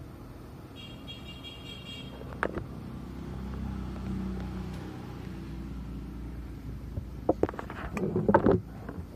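A steady low rumble swelling a little around the middle, like traffic passing outside, with a brief high buzzy tone about a second in. A few sharp clicks and knocks from handling things on a workbench come near the end and are the loudest sounds.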